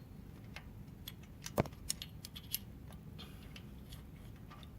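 Scattered, irregular light metallic clicks and taps, the loudest about one and a half seconds in. They come from a small screwdriver and a rocker arm knocking against the valvetrain parts in the open cylinder head of a Pentastar 3.6 V6 while the rocker arm is worked into place.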